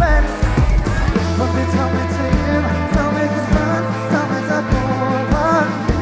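Live rock band playing: drum hits over held bass-guitar notes, with electric guitar filling the middle.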